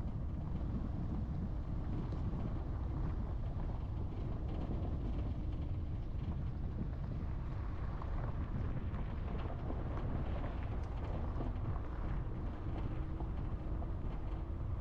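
A car driving over a rough, broken road: steady engine and tyre noise with a deep rumble, with some wind on the microphone.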